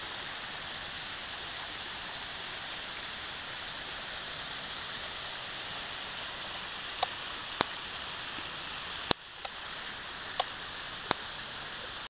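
Steady rush of a waterfall and stream flowing over rock. In the second half, about six sharp clicks break in.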